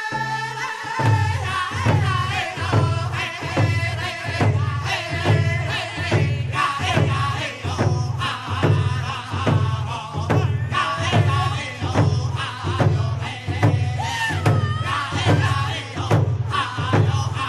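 Music with a steady low drumbeat, about one and a half beats a second, that comes in about a second in, under a melody that wavers in pitch.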